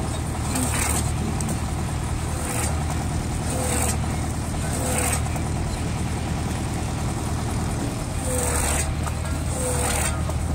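Homemade tractor-driven flywheel log splitter: the tractor engine runs steadily while logs split against the spinning wheel with a sharp crack every second or so, about six in all with a pause in the middle.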